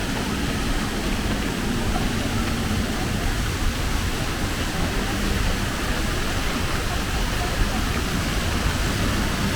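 Steady outdoor city background noise: an even rushing sound over a low rumble, with no single event standing out.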